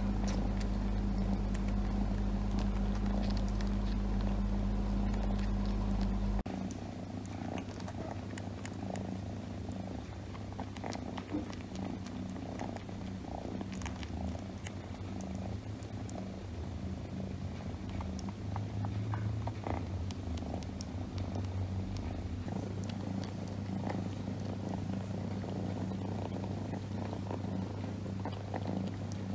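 Domestic cat purring steadily on a lap. The purr's low rumble changes abruptly about six seconds in.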